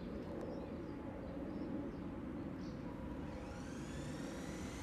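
Steady low rumble throughout. About three and a half seconds in, the model boat's electric drive motor whines up in pitch and then holds, several tones together, as it speeds up.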